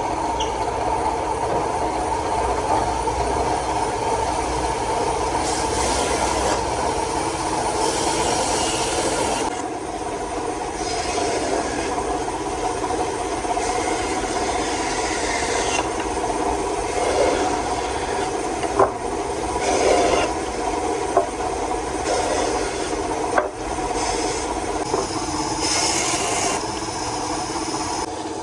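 A woodworking machine's motor running steadily while it shapes wood. Several short passes of rough, rasping abrasion come over the hum, and a few sharp knocks are heard in the second half.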